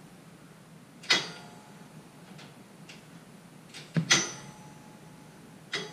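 Sharp metallic clanks of tools and steel parts on a Brunswick A2 pinsetter during disassembly: one about a second in, a quick double clank about four seconds in that rings on briefly, and one near the end, with a few faint clicks between.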